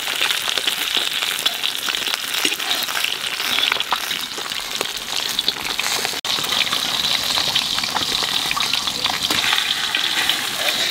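Katla fish steaks frying in hot oil in a large aluminium kadai: a dense, steady crackle and sizzle that breaks off for an instant about six seconds in.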